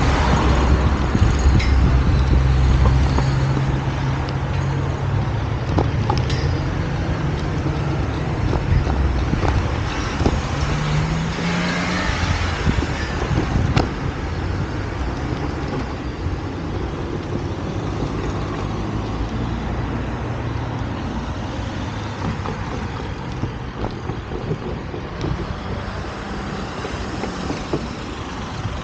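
Road traffic: a motor vehicle's engine running close by, loudest at the start and fading away, with a brief rise in engine pitch partway through over a steady traffic noise.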